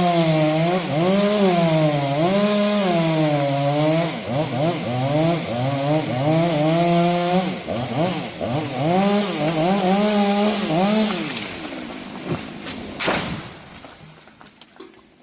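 Chainsaw cutting into a tree trunk, its engine note sagging and recovering as the bar bites. It breaks off briefly about halfway through, cuts again, then stops. A single sharp crack or thump follows near the end.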